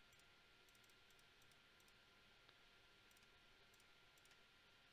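Near silence with scattered faint clicks at a computer, some coming in quick pairs or triples, as numbers are entered into a calculator.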